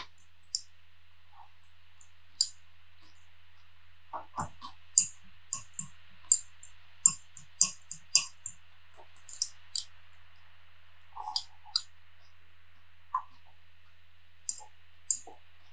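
Metal fork clicking and scraping against a small glass salad bowl while salad is stirred and picked up: an irregular run of sharp clicks with a few duller knocks, over a faint steady hum.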